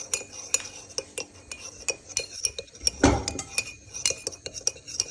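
A utensil stirring pancake batter in a bowl, clinking quickly and unevenly against the side, with one dull thump about three seconds in.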